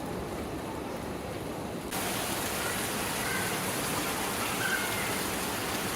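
Heavy rain pouring down, a steady hiss; about two seconds in it turns suddenly louder and brighter.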